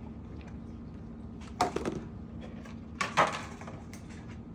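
Two short clattering knocks of kitchen dishes or utensils being handled, about a second and a half apart, over a faint steady hum.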